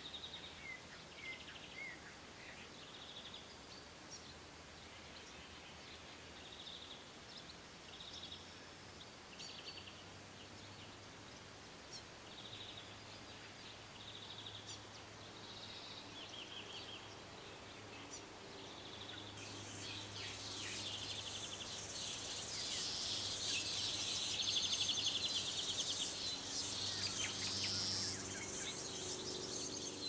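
Forest birds calling in short, repeated phrases over a quiet background. About twenty seconds in, a dense, high chirring of insects joins and the sound grows louder.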